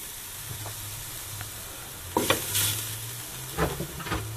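Minced garlic sizzling in hot olive oil in a pan, being stirred, with a few sharp utensil strokes against the pan about two seconds in and twice near the end.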